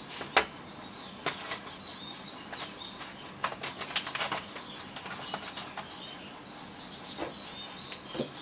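Small bird chirping repeatedly in short rising-and-falling notes, mixed with scattered sharp clicks and taps, one loud click near the start and a quick run of them about halfway through.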